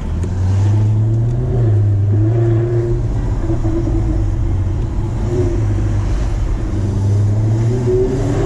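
Jaguar F-Type R's supercharged 5.0-litre V8 exhaust as the car drives at low revs, a steady deep drone, with the revs rising near the end.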